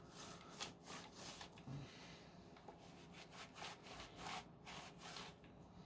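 Faint rubbing or scrubbing strokes on a Dyson V10 vacuum part, about four a second, in two runs with a short pause between them, as the parts are cleaned by hand.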